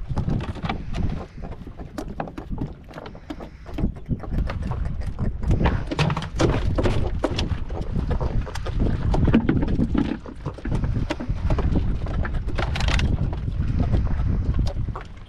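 Irregular knocks and taps on a small fishing boat's deck as freshly caught horse mackerel flap and are handled, over a low rumble of wind on the microphone and the boat at sea.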